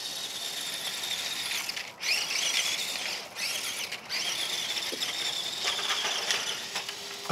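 Grave Digger Trax RC tracked toy monster truck driving on gravel: its small electric drive motors and gearboxes give a high-pitched whine. The whine cuts out briefly about two, three and four seconds in and rises again each time the truck sets off.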